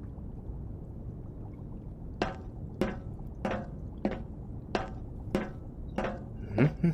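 A low, steady background hum. From about two seconds in, a run of eight sharp, evenly spaced taps follows, about one and a half a second, each with a faint ring.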